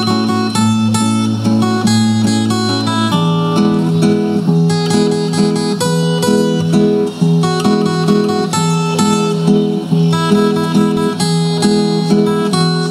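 Two acoustic guitars, a steel-string and a nylon-string classical, playing an instrumental passage together: a plucked melody over strummed chords, with no singing.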